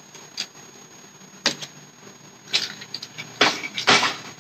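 Cardboard box being cut open with a box cutter: a few short, sharp scrapes and crackles of the blade through packing tape and cardboard, the loudest cluster near the end.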